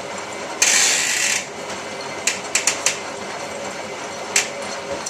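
Hotpoint 9534A washing machine running through a wash cycle, with a short burst of hiss about half a second in and several sharp clicks and knocks later on.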